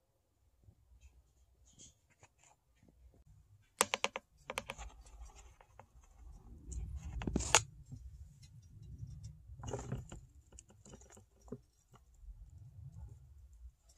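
Handling noise from metal feeding tongs and a plastic enclosure: a quick run of sharp clicks about four seconds in, then scattered clicks and scrapes, with a louder scrape in the middle, over a low rumble.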